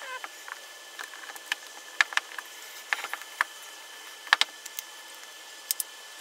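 Plastic housing halves and internal parts of a Makita XDT15 cordless impact driver clicking and tapping as they are fitted back together by hand: irregular sharp clicks, the loudest about two seconds in and again just past four seconds.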